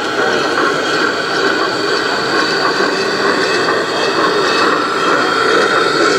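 1:32-scale model steam locomotive and goods wagon running past on the track, a steady, continuous running noise.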